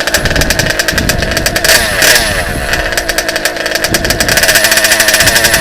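RCMAX GT90 gasoline two-stroke engine of a large-scale HPI Baja RC truck running while warming up, revved briefly about two seconds in and again near the end, its pitch falling back each time.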